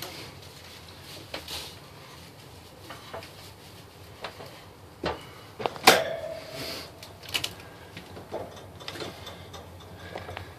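Metal catch pole being handled: scattered clicks and knocks, with one louder metallic clank about six seconds in that rings briefly.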